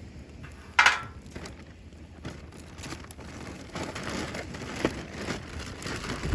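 Dry kindling and firewood crackling and snapping, with one sharp, loud snap about a second in, then a run of smaller irregular cracks.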